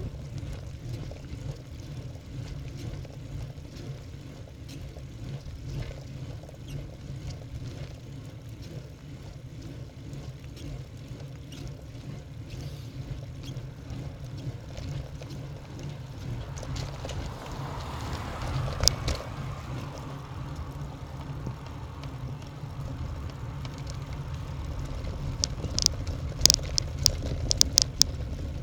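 Wind rushing over the microphone of a bicycle-mounted camera while riding, with tyre noise on rough, cracked asphalt. A run of sharp clicks comes near the end.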